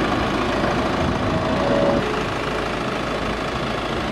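Chevy Colorado's 2.8-litre Duramax four-cylinder turbodiesel idling steadily, a little quieter from about two seconds in.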